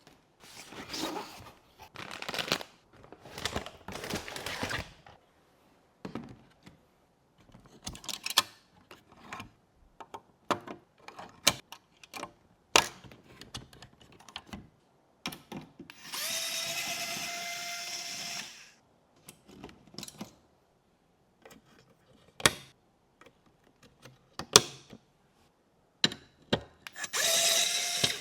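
Small electric screwdriver running in steady bursts, about two and a half seconds in the middle and briefly near the end, amid sharp clicks, knocks and rustles of PC case parts being handled.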